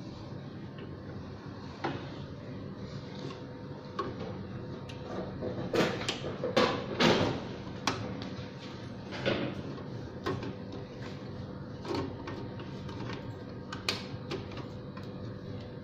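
Hands handling plastic parts inside a flatbed phone-case printer's carriage and ink cartridge area: scattered clicks and knocks, busiest and loudest about six to eight seconds in, over a steady hum.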